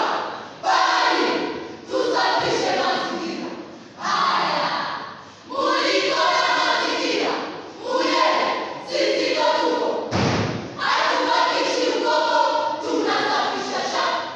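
A group of voices reciting a choral verse in unison, in short, forceful phrases that each start sharply and fade. A single thump comes about ten seconds in.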